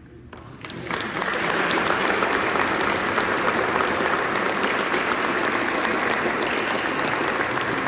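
Audience applause at the end of a piece, swelling in over the first second and then steady.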